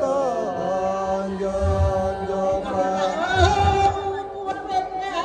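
A woman singing a Kayan parap chant into a microphone, a slow solo melody of long held notes that waver and bend.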